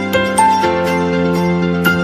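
Instrumental background music: a melody of separate ringing notes over sustained chords.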